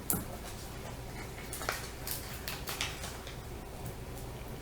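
Small handling sounds of paper crafting: a few light clicks and rustles as foam adhesive dimensionals are peeled and handled, the sharpest just at the start.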